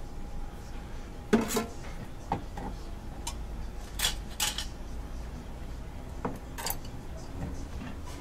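Dishes and a plastic tray handled on a stainless steel kitchen counter: several separate clinks and knocks, the loudest about a second and a half in, over a steady low hum.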